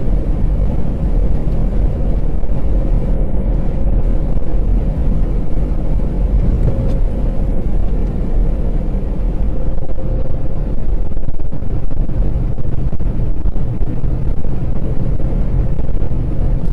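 Steady low rumble of engine and road noise inside a truck's cab at highway speed, with a faint steady hum above it.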